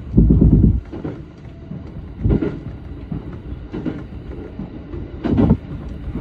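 SR1-series electric train running along the track, heard from the driver's cab: a steady low rumble with short loud clacks of the wheels over rail joints, near the start, about two seconds in and about five seconds in.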